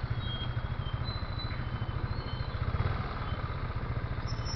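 Small motorcycle engine running steadily at a constant speed, close by, with a fast even pulsing throb.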